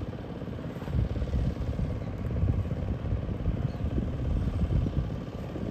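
Wind buffeting the phone's microphone: an uneven, gusting low rumble.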